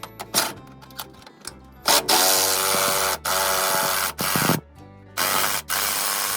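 Background music under a power tool running in bursts: a buzzing run of about two seconds starting about two seconds in, then two shorter runs near the end.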